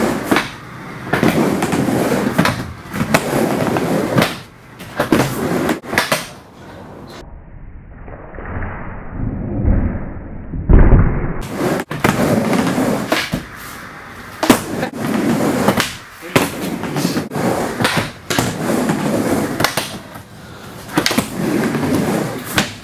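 Skateboard wheels rolling back and forth on a wooden mini ramp. The rumble swells and fades with each pass, broken by sharp knocks as the board strikes the ramp, and there is one heavy thump about eleven seconds in.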